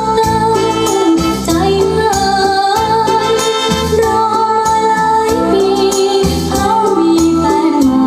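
Recorded music with long held organ-like chords and a singing voice, played through a pair of home-built two-way loudspeakers.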